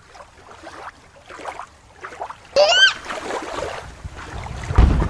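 Water sloshing and splashing as toys are moved about in a water play set, with a short high squeal about two and a half seconds in and a louder rush of water near the end.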